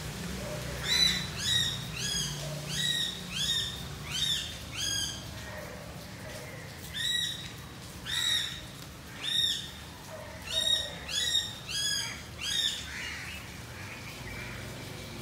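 A bird calling over and over: about a dozen short calls that rise and fall in pitch, in two runs with a pause of about two seconds between them, stopping about two seconds before the end.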